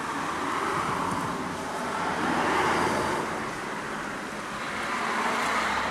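Road traffic: cars passing by, their noise swelling and fading about three times.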